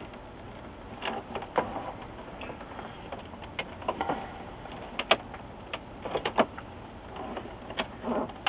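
Plastic snap-in catches of an LG W2753V LCD monitor's front bezel clicking as the bezel is flexed and pried loose by hand. The clicks come sharp and irregular, about a dozen in all, with short bits of plastic scraping between them.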